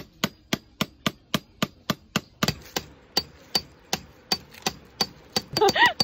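Tent peg being driven into gravel ground with a metal-headed peg hammer: a steady run of sharp strikes, about three a second, each with a faint metallic ring.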